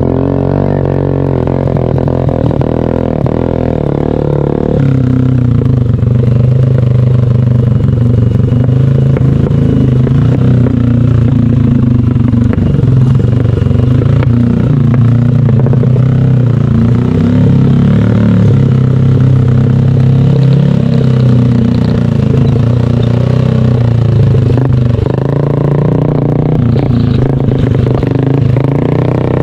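A vehicle engine runs steadily under load, its pitch drifting up and down with the throttle, with some rattling.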